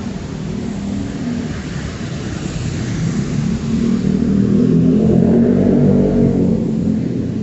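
Road traffic on a wet street: a vehicle engine accelerating past, its low rumble growing louder to a peak about five to six seconds in, then easing off.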